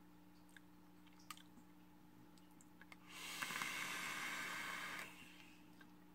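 Vape mod firing at 75 watts as a hit is drawn through the atomizer: about two seconds of airflow hiss and coil sizzle, with a few pops near its start, beginning about three seconds in. A few faint clicks come before it.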